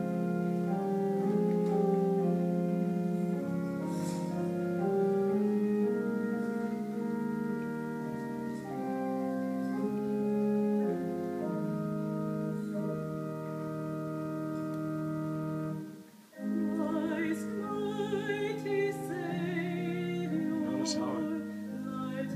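A recording of classical music playing: held keyboard chords that sound steady, then, after a brief break about sixteen seconds in, a singer with a wide vibrato over the accompaniment.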